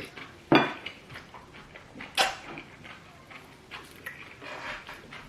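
Eating at the table: dishes clink sharply twice, about half a second and two seconds in, with quieter clicks and rustles between.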